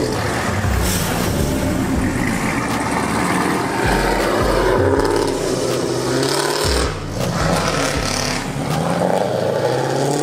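Loud muscle-car exhaust accelerating hard, with the engine note rising in pulls as the cars pull away.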